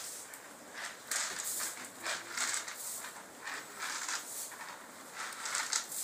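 Cattle feeding at a trough in a cowshed: irregular rustling, crunching and shuffling of feed and hooves.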